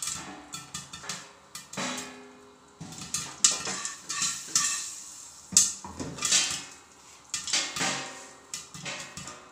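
Popcorn kernels popping inside a covered metal pot: irregular sharp knocks against the lid and sides. About halfway through, the pot is lifted and shaken, adding metal rattling and scraping against the stove grate.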